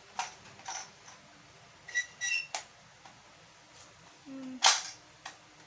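Plastic parts of a toy cash register clicking and knocking as they are handled and opened: scattered sharp clicks, the loudest about three-quarters of the way through, with a brief high squeak about two seconds in.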